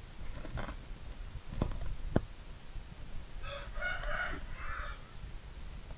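A few sharp knocks in the first two seconds, then a rooster crows once in the background, a call of about a second and a half.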